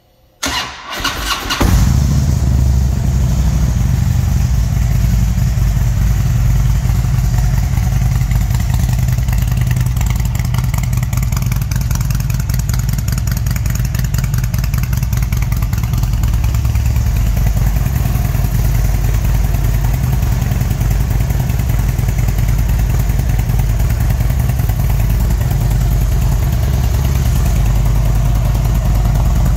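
2007 Harley-Davidson Road King's Twin Cam 96 V-twin cranked over by the starter for about a second, catching just under two seconds in, then idling steadily through its Rinehart exhaust.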